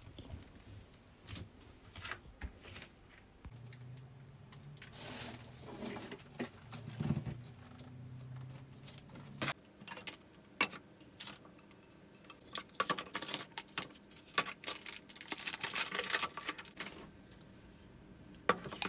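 Small handling sounds: scattered clicks, taps and short rustles, with a low steady hum from about four to nine and a half seconds in.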